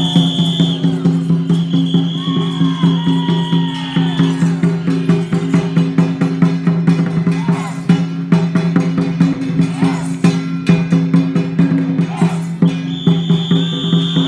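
Loud ceremonial music with fast, even percussion of drums and wood-block-like clacks over a steady held drone. A high sustained note sounds at the start, again from about two to four seconds in, and again near the end.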